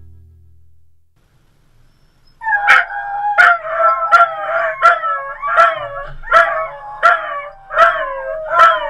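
Beagles baying: a run of loud, wavering howls, each with a sharp start, coming about one every three-quarters of a second and beginning a couple of seconds in.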